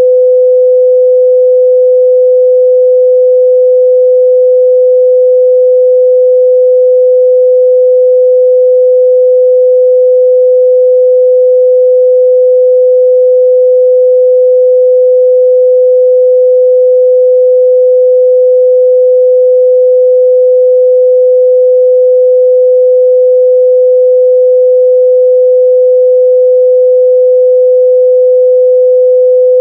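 A steady, loud 505 Hz sine-wave test tone: one pure pitch held without change.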